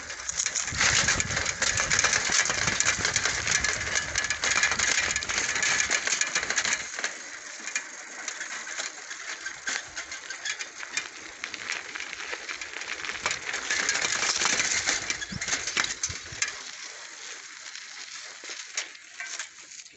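Bicycle rolling over a rough dirt track, its tyres crackling over grit, twigs and dry leaves, with a steady run of small clicks and rattles.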